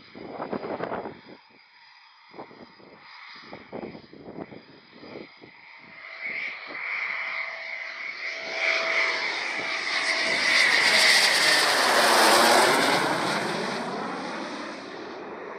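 A Eurofighter Typhoon's twin EJ200 turbofan engines on landing approach with the gear down. A jet whine grows from about six seconds in, is loudest as the jet passes close, then fades.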